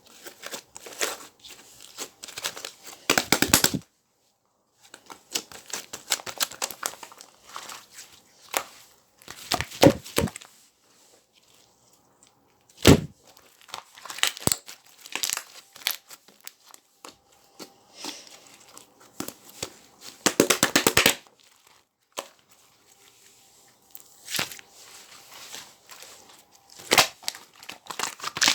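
Clusters of small crackling pops from air bubbles being squeezed and burst, in irregular bursts with short pauses between them, and one sharper single crack partway through.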